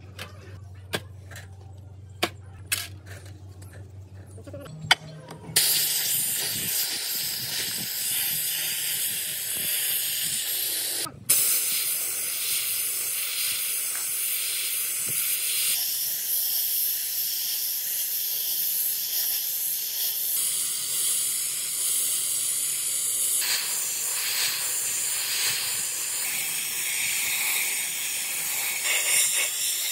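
Handheld sandblasting gun blasting the cast engine side cover of a Minsk 125 motorcycle: a loud, steady hiss of compressed air and abrasive that starts about five seconds in and breaks off briefly near the middle. Before it, a few light clicks of metal parts being set down in a metal tray.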